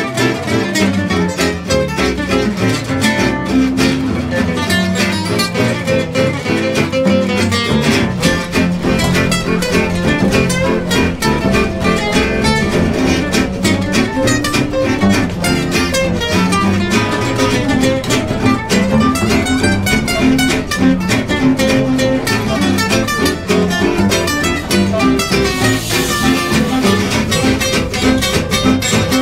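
Small acoustic swing jazz band playing: two acoustic guitars strumming and picking, with double bass and clarinet.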